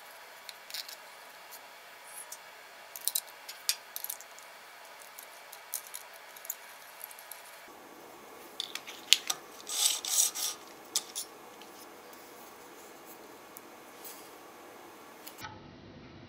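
Scattered light clicks, taps and short scrapes of small wooden parts and hardware being handled by hand, with a denser, louder cluster a little past the middle.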